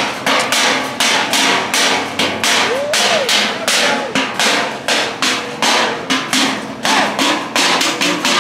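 Loud, even percussion drumming: sharp strikes about two to three a second, with a short shout or whoop about three seconds in.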